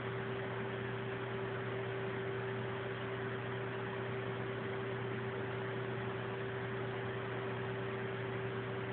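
Steady hiss with a constant low hum, unchanging throughout; no meowing.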